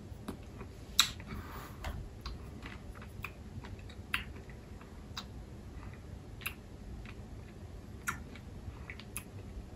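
Sharp, irregular crunches as a sugar-shelled Marabou Non Stop chocolate button is chewed, the loudest about a second in.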